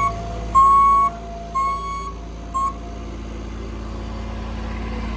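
Bobcat skid-steer loader's backup alarm beeping about once a second, three beeps and a clipped fourth, over its steady engine running; after the beeps stop, the engine keeps running.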